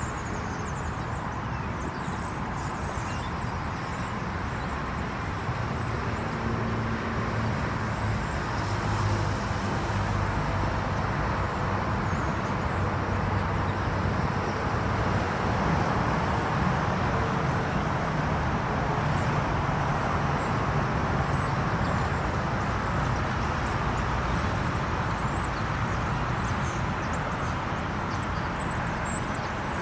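Car running at low speed, a steady engine rumble and road hiss that grows a little louder midway through, heard from inside the car.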